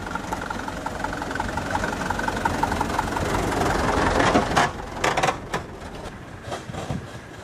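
Mitsubishi Fuso dump truck's diesel engine pulling past close by, growing louder until the truck draws level about four seconds in. A few knocks and rattles follow as it goes by, and then the engine fades away.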